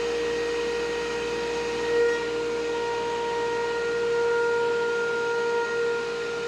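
Thickness planer running with a steady whine.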